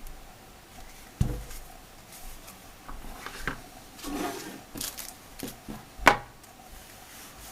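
Handling noises from the unboxed binoculars and their packaging: a knock about a second in, then rubbing and light clicks, and a sharper knock about six seconds in.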